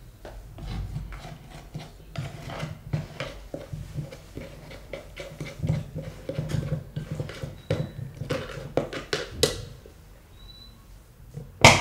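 A spatula scraping lemon pulp off a plastic citrus reamer, a long run of short, uneven scrapes and taps. A single sharp knock comes right at the end.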